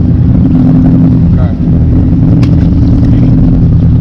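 A boat's engine running steadily with a deep, even hum, and a single sharp click about two and a half seconds in.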